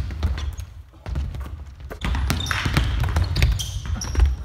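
Basketballs bouncing on a hardwood gym court, with sneakers squeaking on the floor as players drive to the basket. The thuds thin out briefly about a second in, then pick up again.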